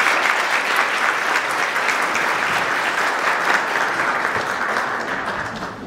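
An audience of a couple of hundred people applauding steadily, tailing off near the end.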